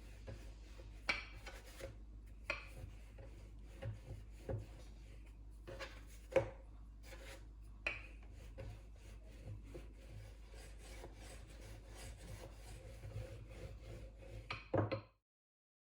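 Pizza dough being handled and shaped on a board: faint rubbing and scraping with occasional light knocks. The sound cuts off suddenly near the end.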